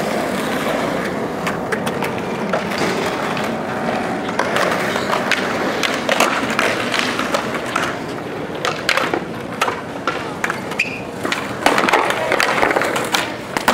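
Skateboard wheels rolling on concrete, with repeated sharp clacks of boards popping and landing tricks, coming thicker in the last few seconds.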